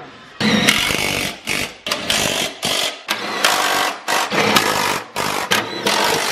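Cordless impact driver run in about ten short bursts with brief pauses between them, tightening the bolts on a new aftermarket exhaust system.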